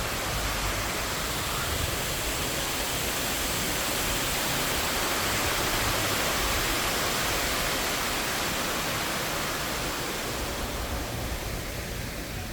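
Steady rush of falling water, as from a small waterfall or fountain, growing louder toward the middle and fading near the end.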